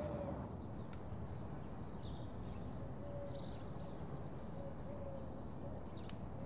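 Outdoor ambience: a steady background hum and hiss with small birds chirping again and again.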